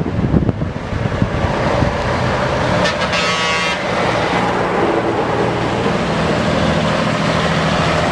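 Classic diesel lorries driving past in a convoy, their engines running loud and close as a tractor unit with a trailer goes by. A horn sounds once for just under a second about three seconds in.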